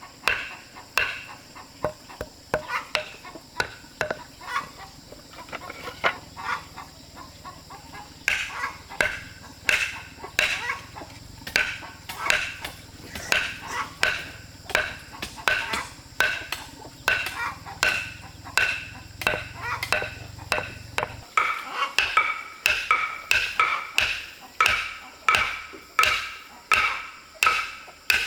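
Steady series of sharp hand-tool strikes, about one or two a second, each with a short ring. Chickens call in the background.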